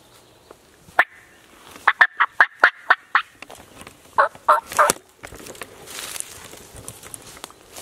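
Turkey calling: one sharp note, then a fast run of about eight short, evenly spaced notes, then three lower notes just after the middle.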